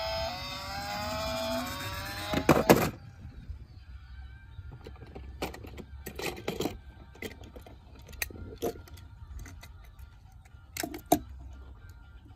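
A short electronic tune with sliding pitches plays, then stops with a burst of loud clicks about two and a half seconds in. After that come scattered plastic clicks and knocks of toy cars being handled, over a low hum.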